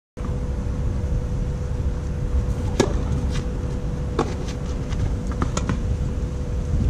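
Tennis rally on a clay court: sharp racket-on-ball hits and ball bounces, the loudest about three seconds in and several more over the next three seconds, over a steady low rumble of wind on the microphone and a faint steady tone.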